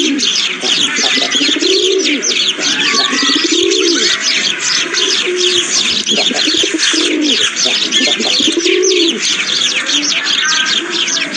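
Morning bird chorus: many small birds chirping densely and continuously, with a low, rising-and-falling call repeating about every two seconds underneath.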